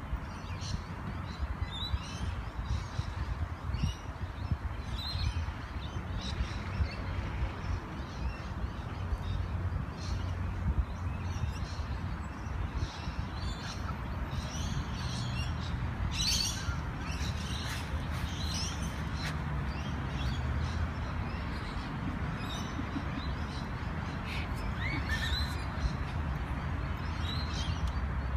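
Outdoor birds calling and chirping in many short calls, busiest about halfway through, over a steady low rumble.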